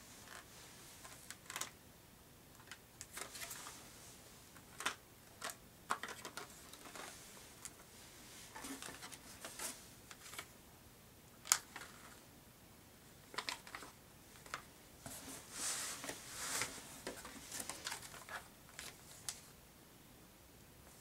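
Items being handled and taken out of a cardboard box: scattered light clicks and knocks, with short rustles of plastic packaging.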